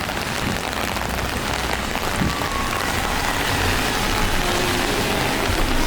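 Steady, consistent rain falling, an even hiss.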